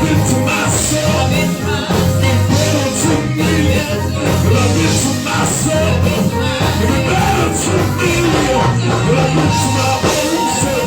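Live gospel band playing an upbeat praise-break groove, with heavy bass and repeated cymbal hits.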